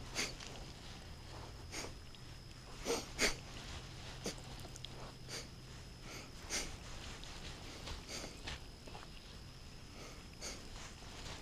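A man sniffling through a stuffy nose from a summer cold: short sniffs every second or so, the loudest two close together about three seconds in.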